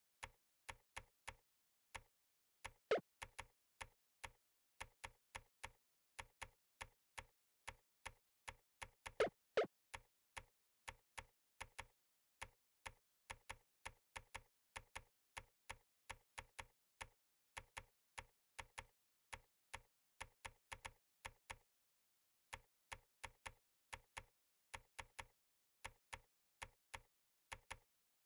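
Computer keyboard keystrokes typed at a slow, uneven touch-typing pace of a few clicks a second. There is a pause of about a second and a half about three-quarters of the way through, and a few clicks near the start and about a third of the way in are louder than the rest.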